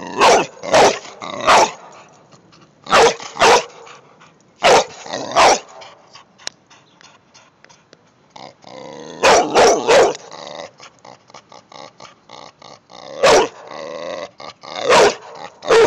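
A dog barking in short runs of one to four loud barks, with pauses between the runs.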